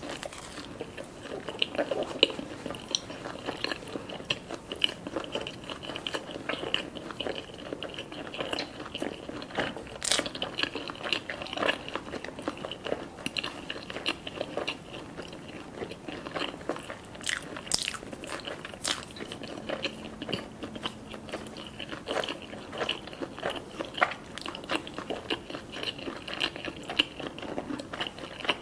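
Close-miked eating sounds: a person biting and chewing food, with a steady run of crunching and small wet clicks.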